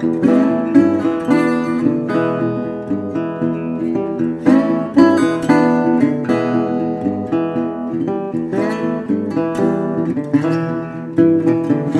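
Intro music played on acoustic guitar, strummed and plucked.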